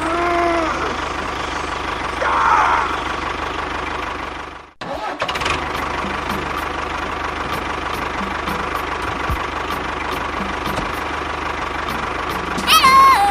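An engine running steadily, cut off briefly about a third of the way in, then running again. Short high, bending cries come near the start, once more a couple of seconds in, and loudest near the end.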